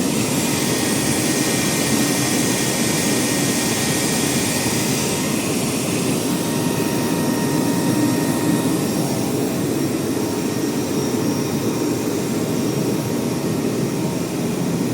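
A cooling blower running steadily: a continuous loud rushing of air with a few faint steady whines above it.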